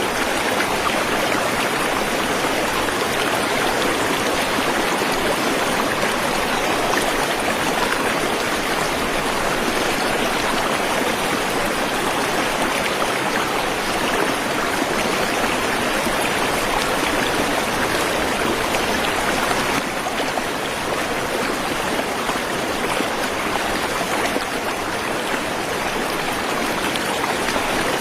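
Waterfall and stream water rushing steadily, a dense even hiss with no breaks.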